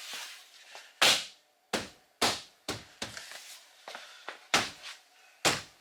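Rear door trim panel of a 2017 Kia Sorento being struck by hand to pop its plastic clips back into the door: about seven sharp smacks at uneven intervals.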